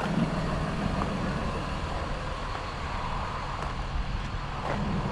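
Delivery step van's engine idling: a steady low rumble.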